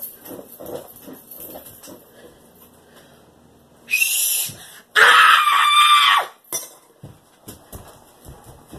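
A whistle blown in two blasts: a short, shrill one about four seconds in, then a longer, louder one a second later that holds a steady tone.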